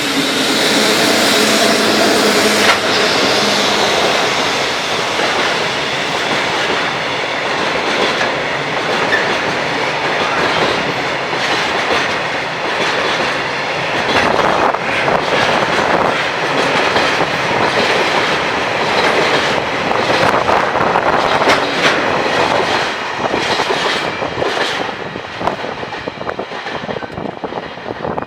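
Freight train of wagons behind a JR Freight EF65 electric locomotive rolling past over a level crossing, the wheels clattering over rail joints in a dense run of clicks. The sound tails off over the last few seconds as the train moves away.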